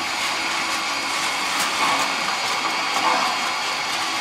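Model trains running on the layout's track: a steady whirring rumble of electric motors and wheels.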